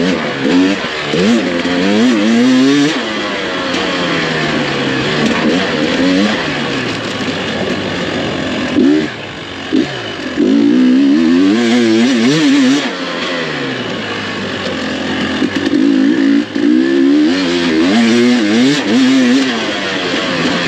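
GasGas EC300 two-stroke dirt bike engine being ridden hard, revving up and down again and again as the throttle is worked through the whoops. The throttle is chopped twice, briefly, about nine to ten seconds in.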